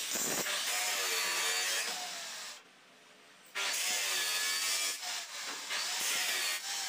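Angle grinder grinding metal pipe, the motor's whine wavering in pitch as the disc bites and eases. It cuts out abruptly about two and a half seconds in and starts again a second later.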